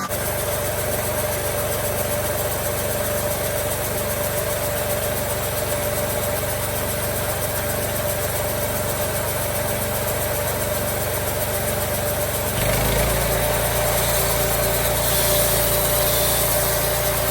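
Engine of a homemade bandsaw mill running steadily; its low drone changes abruptly about twelve seconds in.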